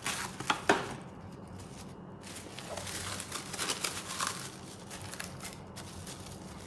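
Plastic cling wrap crinkling as it is torn from its box and tucked under a plate, with a few sharp snaps in the first second and an uneven rustle after.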